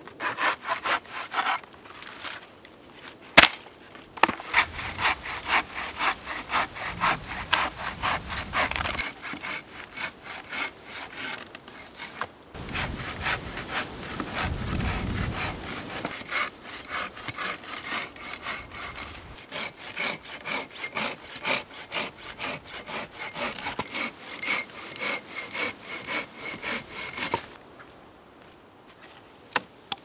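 Hand saw cutting through wood in steady back-and-forth strokes, about two a second, which stop near the end. A single sharp knock comes a few seconds in.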